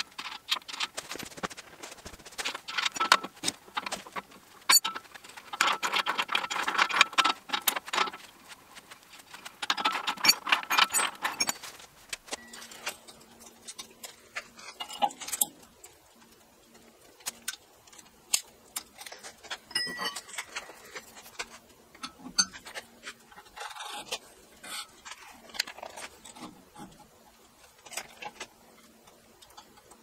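Small steel parts clicking and clinking in quick runs of taps as chain sprockets, bolts and a shaft are handled and fitted on a sawmill frame. The taps are busiest in the first twelve seconds, then grow sparser over a faint steady hum.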